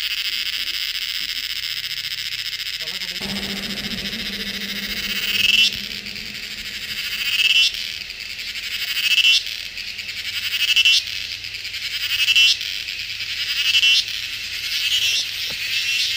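High-pitched chorus of insects, a dense steady buzzing that from about three seconds in swells up and cuts off sharply again and again, roughly every second and a half.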